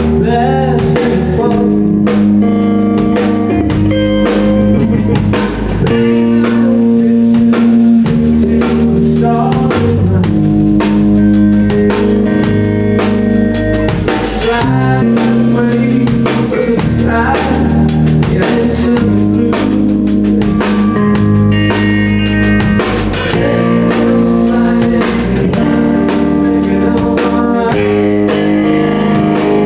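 Live blues-rock band playing loudly: electric guitar over a steady drum-kit beat, with a man singing at times.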